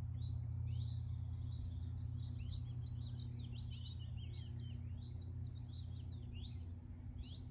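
Small songbirds calling and singing: many quick high chirps and short trills, over a steady low rumble.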